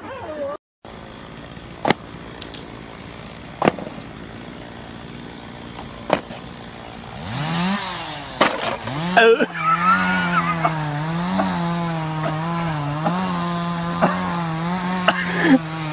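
Model airplane engine starting. After a few sharp clicks it catches about seven seconds in with a rising whine, cuts out briefly, then runs steadily with a buzzing note that wavers up and down in pitch.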